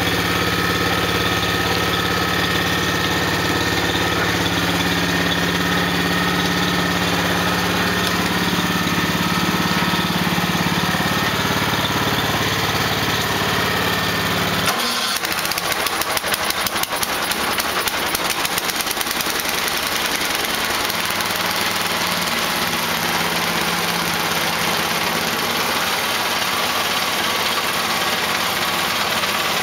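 Small engines running: a steady low idle, then about halfway through an abrupt switch to a lighter, higher-pitched engine sound with a fast, even ticking.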